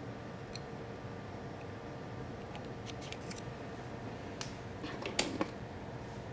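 Soft clicks and taps of plastic lab tubes and a pipette being handled on a bench, over a steady room hum. The clearest clicks come about five seconds in.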